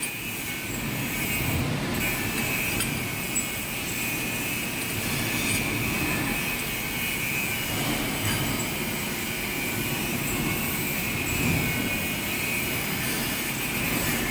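Centre lathe running steadily while machining a flange tailpiece: an even low rumble with a steady high whine over it.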